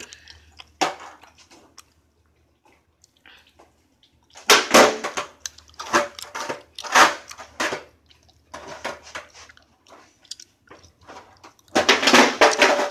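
Skateboard on rough concrete: wheels rolling and the board clacking in several sharp knocks from about four seconds in, with a longer, louder clattering run near the end as the board meets a wall.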